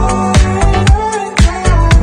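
Background music with a steady beat: drum hits about twice a second over a bass line and melody, in a funk or disco style.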